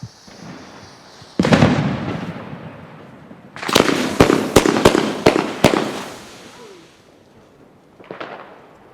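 BK Feuerwerk fireworks cake firing. A sudden shot about a second and a half in trails off in a long fading hiss. About two seconds later comes a quick run of sharp cracks and bangs, and there is a smaller burst near the end.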